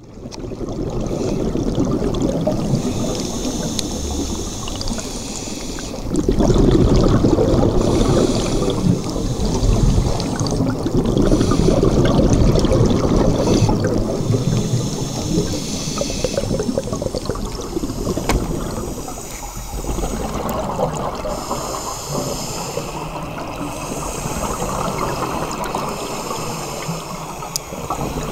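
Scuba regulator breathing heard underwater: hissing inhalations alternating every few seconds with loud, bubbling exhalations.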